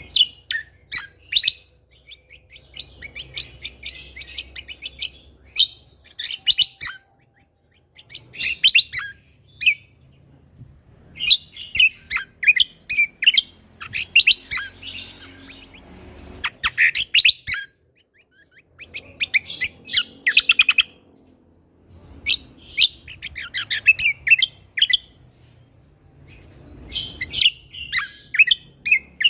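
Cucak kombo (kecial kombo) songbird singing in its lively, full 'gacor' style: repeated bursts of rapid, sharp chirping notes, each one to three seconds long, broken by short pauses.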